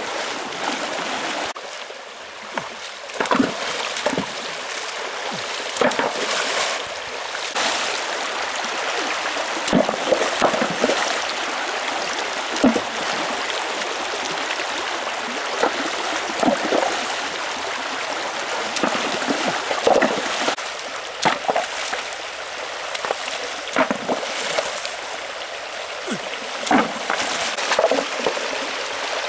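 Shallow rocky stream running steadily, with frequent short splashes as people wade through it and work their hands in the water.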